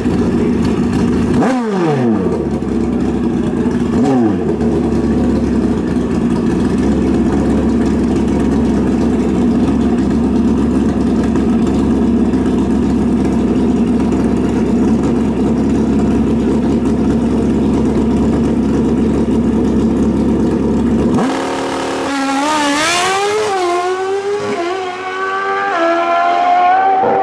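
Suzuki drag motorcycle's engine running loud and steady on the start line, with two sharp drops in revs a few seconds in. About 21 seconds in it launches, and the engine pitch climbs in steps as it shifts up through the gears pulling away down the strip.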